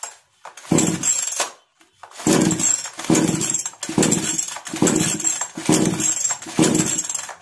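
Recoil starter of a Kisan Kraft KKC SP6522 two-stroke chainsaw pulled about seven times in quick succession. Each pull is a short whirr of the engine cranking over. The engine is on choke but never catches: a starting fault.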